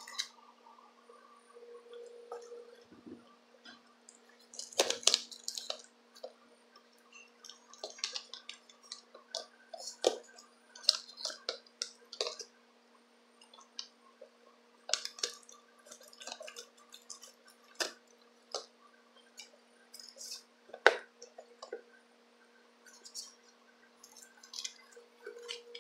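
A knife scraping and cutting at packing tape and cardboard on a shipping box, with scattered crinkles, taps and knocks as the box is handled, one sharper knock about three-quarters of the way through. A faint steady hum runs underneath.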